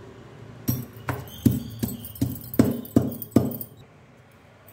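Stone pestle pounding green chillies, garlic and cumin seeds in a small stone mortar: about eight knocks, two to three a second, stopping a little over a second before the end.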